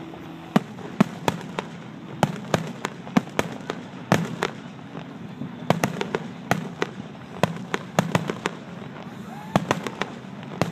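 Aerial fireworks bursting in a rapid, irregular run of sharp bangs and pops, several a second.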